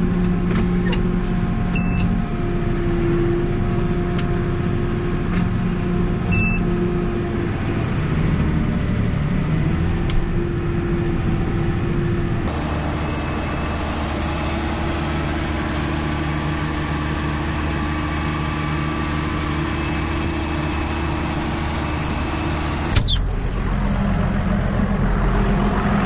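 JCB Fastrac tractor engine running steadily while driving and spraying, a continuous drone. The tone changes abruptly about halfway through, and there is a brief sharp knock near the end.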